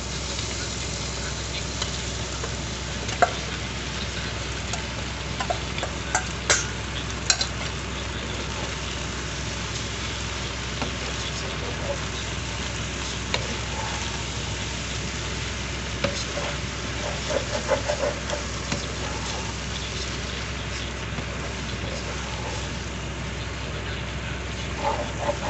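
Short noodles and scrambled egg sizzling in a nonstick frying pan as they are stir-fried, with a spatula now and then clicking and scraping against the pan.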